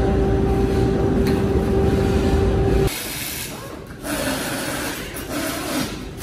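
Electric walk-behind pallet stacker running with a steady whine and rumble as it rolls a loaded wire cage. The whine cuts off sharply about three seconds in, leaving quieter handling noise and faint voices.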